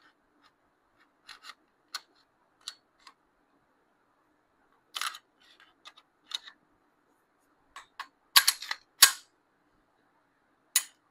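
Scattered metallic clicks and snaps of a Canik SFX Rival-S pistol being reassembled, its steel slide fitted back onto the frame, with a quick run of louder sharp clacks about eight to nine seconds in.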